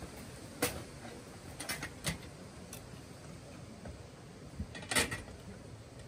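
Metal clinks and clanks at a wood-fired field kitchen trailer as the cook handles its pots and lids: a few sharp knocks spread through, the loudest cluster about five seconds in, over a steady low hiss.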